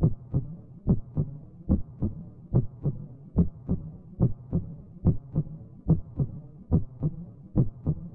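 Heartbeat sound effect: steady paired lub-dub thumps, about 70 a minute, over a faint low hum.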